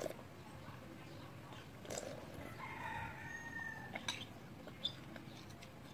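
A metal spoon clicks against a ceramic bowl a few times. A pitched bird call of about a second, slightly falling, sounds in the background about halfway through.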